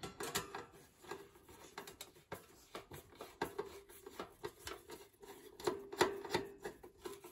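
Hand screwdriver turning a screw into the metal end of a toaster: irregular small clicks and scrapes of the bit and screw against the metal.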